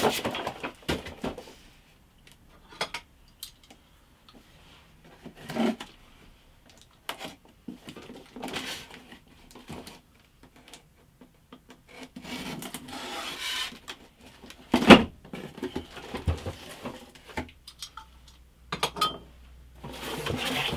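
Cardboard packaging being handled: a cardboard sheet lifted out, packing tape on a small cardboard box slit with a knife, and the box flaps pulled open. There are scattered scrapes, rustles and knocks, with one sharp knock about two-thirds of the way through.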